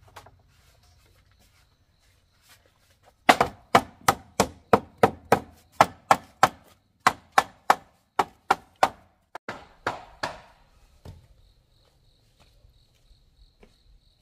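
A blade chopping into wood: a quick run of about twenty sharp strokes at roughly three a second, pausing briefly midway, with one last stroke a little later.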